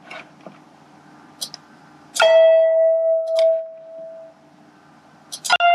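A few short clicks, then a single synthesized instrument note from the notation software's playback, struck sharply and ringing down over about two seconds. Another note starts just before the end.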